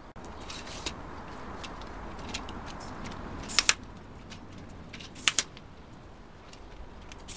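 Giottos tripod being folded up: leg sections sliding and rubbing, with sharp clicks in quick pairs as the leg locks snap, about three and a half seconds in and again about five seconds in.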